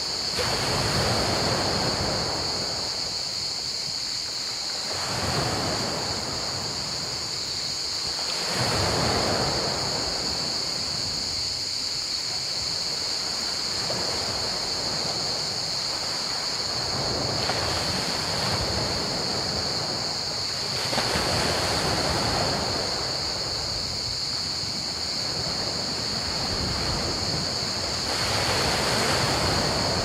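Small sea waves breaking and washing up a pebble beach, about six surges in the half minute, over a steady high chorus of crickets.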